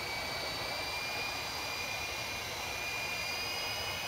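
Blade mCX2 micro coaxial RC helicopter's electric motors and rotors whining steadily in flight, the pitch wavering slightly.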